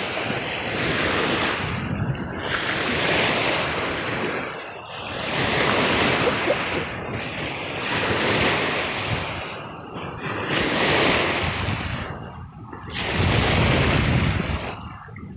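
Choppy lake waves washing and lapping, the rush swelling and falling every few seconds, with wind on the microphone.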